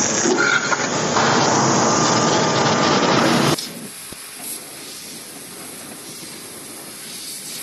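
Laser cutting machine cutting steel plate: the loud, steady hiss of the assist-gas jet through the cutting nozzle. About three and a half seconds in it drops suddenly to a quieter, steady hiss as a second machine cuts thin sheet.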